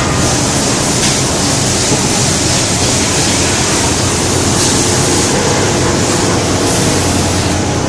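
Eishin Techno Eco-it sludge recovery unit running, drawing coolant and settled aluminium chips up its suction hose vacuum-style with a loud, steady, watery rushing noise.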